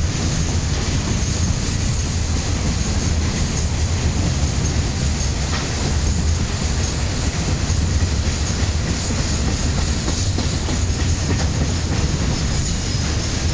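Freight train of open-top gondola wagons rolling past at steady speed: a continuous rumble of steel wheels on the rails, with irregular clicking as the wheelsets cross rail joints.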